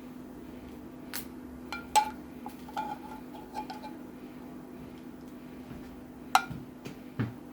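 Dishes and utensils clinking: a handful of sharp, lightly ringing knocks, the loudest about two seconds in and near the end, over a steady low hum.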